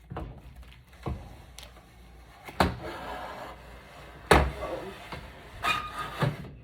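A ferrous steel laser-cutter crumb tray knocking and clanking against the machine's bed as it is lowered into place: about six separate knocks, the loudest a little past the middle.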